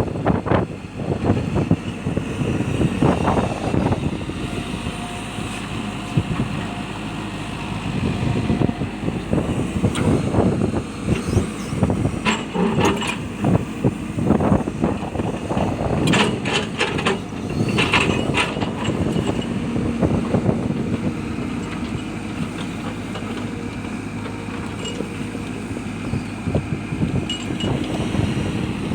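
Hitachi excavator engine running under load, with irregular sharp clanks and knocks of rock against the bucket, clustered in the middle.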